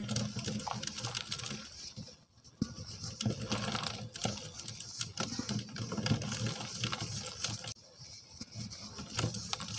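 Hands crumbling and squeezing lumps of pure cement: dense gritty crackling and crunching as the lumps break apart, with powder and grit pattering onto a plastic strainer. It briefly quietens about two seconds in and again about eight seconds in.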